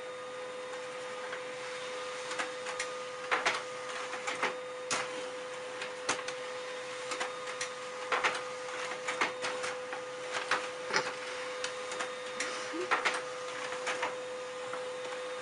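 Desktop printer printing pages: a steady mechanical hum with a constant tone, broken by irregular clicks as sheets feed out.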